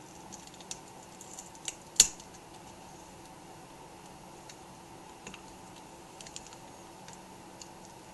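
Scattered light clicks and taps from hands handling the laptop screen panel and its display cable while the cable's tape is peeled up, with one sharper click about two seconds in.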